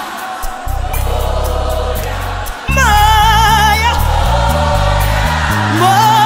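Live gospel music: a choir holds chords over keyboard and bass. About three seconds in, the music jumps louder as a solo voice enters singing with strong vibrato, and it comes in again near the end.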